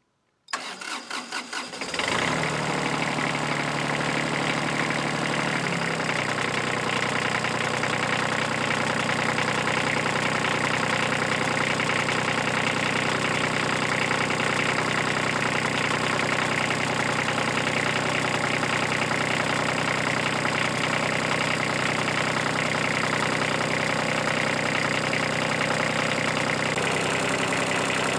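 Kubota F2400's three-cylinder diesel engine being cranked on the starter, catching after about a second and a half, then running steadily at idle. This is its first start after sitting for years. Its note changes about six seconds in.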